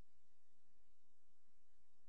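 Faint, steady room tone: a low hiss with a soft, uneven low rumble and no distinct events.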